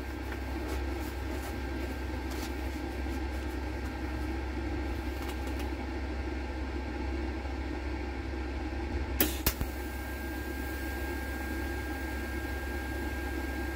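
TIG welding machine running with a steady hum. About nine seconds in comes a short crackle, and a thin steady whine stays on after it.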